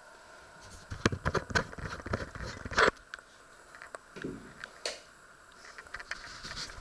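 Close handling noise: a quick run of small clicks, taps and scrapes, loudest just before the middle, then a dull thud and a few more scattered clicks.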